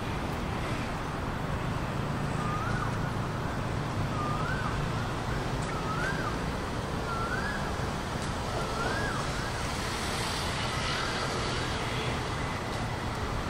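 Steady city traffic rumble. Over it, a short rising-and-falling whistled call repeats about six times, roughly every second and a half.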